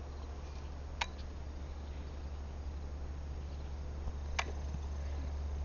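Quiet background with a steady low hum and faint insect chirping, broken by two brief sharp clicks, about a second in and again near the end.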